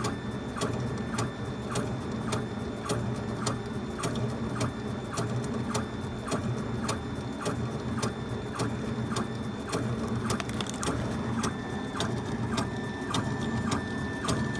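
Laser engraver at work, its stepper motors driving the head back and forth across the wood with a regular tick about three times a second over a steady low hum.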